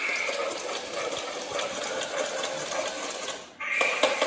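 Small electric motor and plastic gearbox of a remote-control toy velociraptor running, a steady whir with rapid clicking. It cuts out briefly about three and a half seconds in, then starts again.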